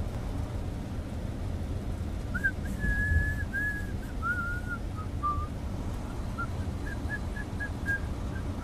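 A person whistling a short wavering tune, then a run of short separate notes near the end, over the steady low rumble of a vehicle cab on the road.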